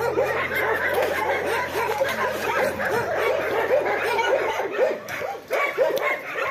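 Dogs whining and yelping, many short high squeals overlapping without a break.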